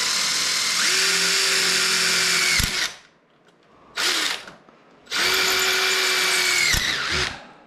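Power drill with a 7/32-inch bit boring through metal conduit: two long runs of a couple of seconds each with a short blip between, each with a steady motor whine that winds down as the trigger is released.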